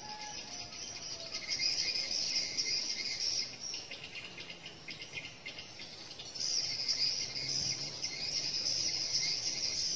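Chorus of shrilling insects: a high, rapidly pulsing drone that fades a few seconds in and swells back about two-thirds of the way through.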